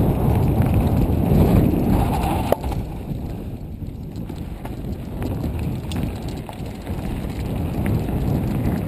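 Mountain bike ride: wind buffeting the microphone over a steady rumble of tyres on the trail, with a few light clicks and rattles. It eases off a little about halfway through and builds again near the end.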